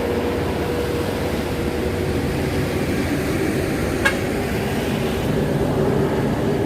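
Vehicle engine and road noise running steadily, with a humming tone that drifts lower partway through, and one short sharp click about four seconds in.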